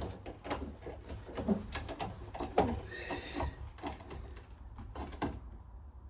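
Metal hand tools clicking and knocking on the gimbal housing's bolts and nuts as they are done up, with a short squeak about three seconds in.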